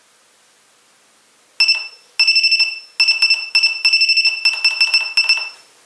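Active buzzer driven by an ESP32 sounding a single high-pitched tone in a string of beeps of uneven length, short and longer ones, starting about one and a half seconds in and stopping shortly before the end.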